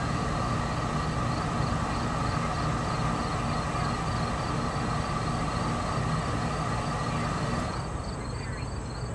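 CSX coal hopper train rolling away on curved track: a steady rumble of wheels on rail with a steady high tone over it, which drops off sharply near the end as the last car goes out of sight.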